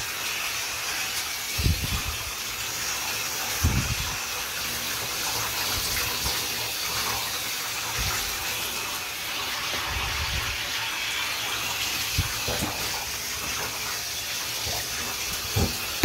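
Handheld bathtub shower head spraying water over a wet dog's coat, rinsing out the shampoo: a steady hiss of running, splashing water. A few dull knocks come through at intervals.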